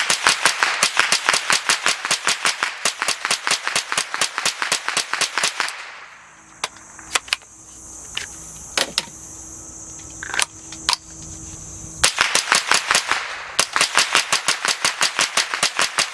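Suppressed .22 LR semi-automatic rifle (Smith & Wesson M&P 15-22) firing in fast strings of about seven shots a second. The strings break off for a few seconds in the middle, with only scattered single shots, then start again.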